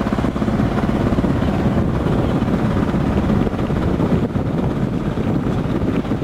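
A boat's engine running steadily with a fast, even throb, mixed with wind buffeting the microphone.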